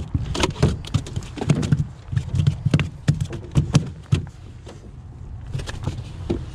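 Largemouth bass flopping on the carpeted floor of an aluminum boat: a string of sharp, irregular knocks and thumps, about three a second, that die down after about four seconds, with a few faint knocks near the end.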